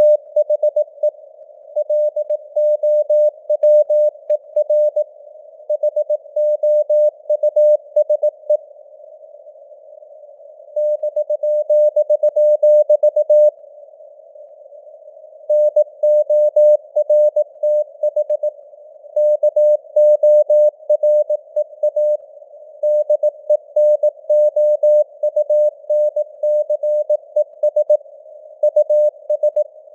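Morse code sent at 18 words per minute: a single steady mid-pitched tone keyed on and off in dots and dashes over a band of simulated radio static, the signal rising and falling in strength (QSB). The sending pauses twice for a second or two, about a third and a half of the way through.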